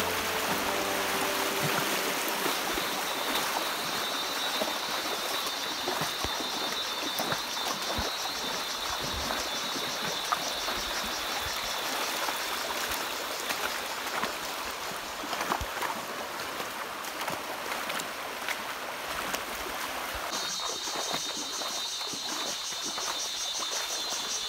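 A stream flowing steadily, with a high, pulsing buzz that starts a few seconds in and grows louder near the end.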